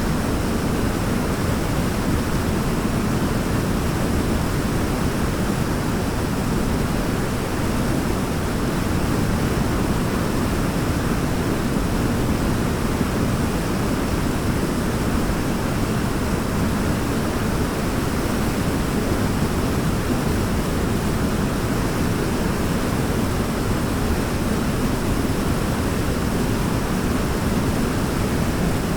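Waterfall rushing steadily: a constant, even white-noise roar of falling water, heaviest in the low end, with no breaks or changes.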